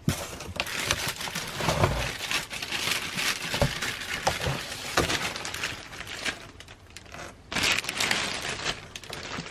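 Plastic packaging crinkling and crackling as it is handled and pulled open, in irregular bursts with sharp clicks, easing briefly about two-thirds of the way through before starting up again.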